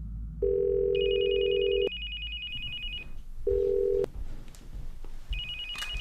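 Telephone tones: a steady low phone tone sounds twice, for about a second and a half and then about half a second, each time starting and stopping abruptly. An electronic phone ringer trills over it for about two seconds and starts again near the end.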